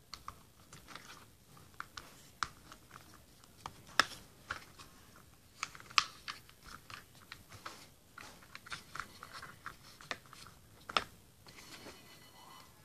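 Irregular small clicks and taps of something being handled close to the microphone, with sharper clicks about four, six and eleven seconds in.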